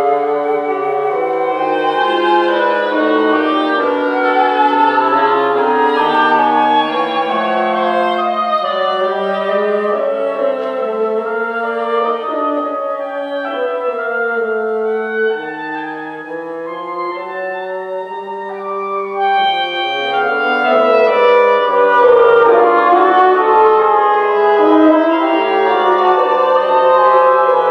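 Woodwind quintet of flute, oboe, clarinet, bassoon and horn playing contemporary concert music, several melodic lines moving at once. It eases off a little around the middle and grows louder again after about twenty seconds.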